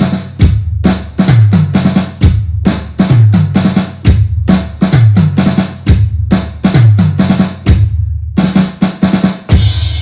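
Drum-heavy music: a fast, loud drum beat with low drum strokes that drop in pitch about once a second. It stops briefly near the end, then comes back with a cymbal crash that rings on.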